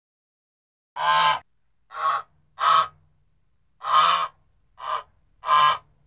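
Goose honking: six short, harsh honks in two groups of three, with silent gaps between them.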